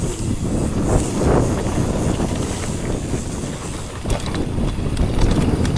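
Wind buffeting the microphone, with scattered knocks and rattles from a mountain bike moving over rough trail.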